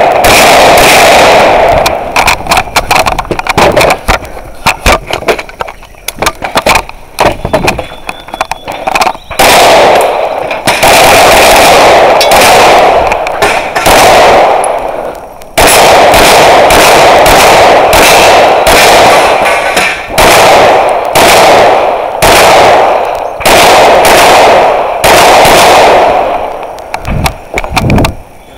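Close, rapid gunfire from a competitor's rifle and pistol: shots come in quick strings broken by short pauses, loud enough to overload the recording.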